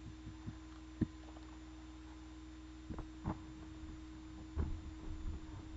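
A steady electrical hum, one held tone with a low drone under it, with a few faint knocks and bumps scattered through; a sudden loud sound comes right at the end.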